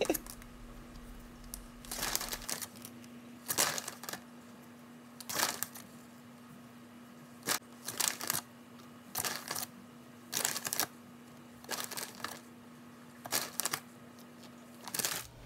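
Short crinkles and rustles, about one every second or two, as mini vanilla wafers are picked out and laid one by one on top of a cream pie, over a faint steady hum.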